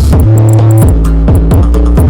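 Loud electronic dance music with a heavy bass line and a drum-machine beat; the held bass notes change about every second.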